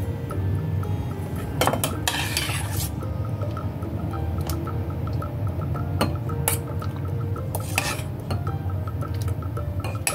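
A metal spoon clinking against a stainless steel pot and a glass bowl as cooked candil balls are scooped out and dropped in: several separate sharp clinks with a short scrape about two seconds in, over background music.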